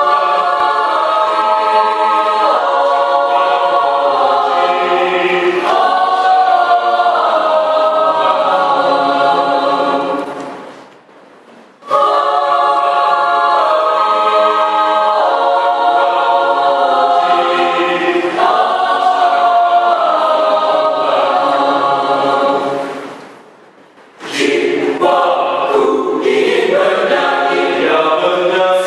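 Mixed choir of young men and women singing unaccompanied in several parts. Each long phrase dies away, once about ten seconds in and again about twenty-three seconds in, and the next phrase starts after a pause of about a second.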